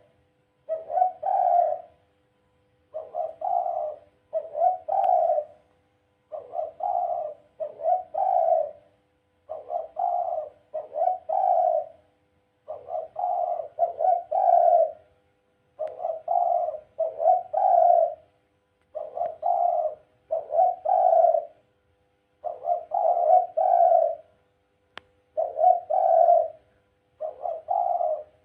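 Dove cooing in repeated paired phrases, about one pair every three seconds, each phrase roughly a second of quick rolling coos.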